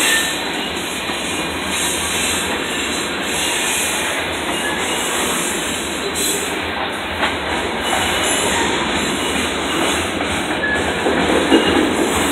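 Covered hopper cars of a freight train rolling past, their steel wheels making a steady running noise on the rails, with a louder knock near the end.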